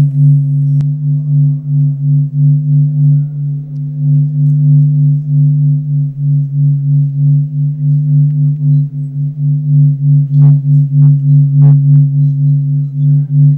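A low, steady droning tone that swells and fades about twice a second, with a few sharp clicks near the end.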